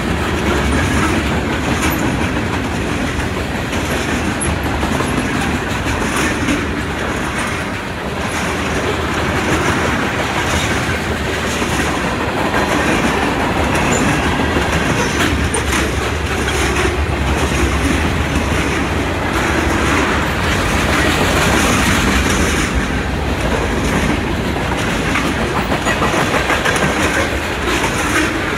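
Freight cars of a Norfolk Southern mixed freight train rolling past close by: a steady, loud rumble of steel wheels with clickety-clack over the rail joints.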